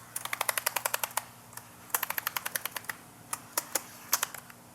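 Keys on a Dell 3110 2-in-1 Chromebook keyboard being pressed one after another to test each key: a quick run of key clicks, a second run about two seconds in, then a few single presses.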